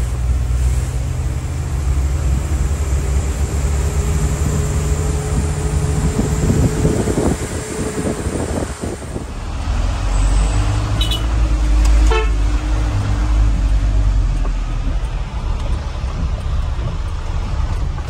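Truck engine running, heard from inside the cab while driving, with a vehicle horn holding one steady note for about five seconds, then a second, lower note for about four seconds, starting about ten seconds in.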